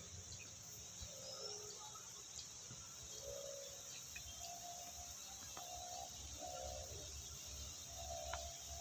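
Faint rural ambience: crickets chirring steadily, with short faint calls repeating from about a second and a half in.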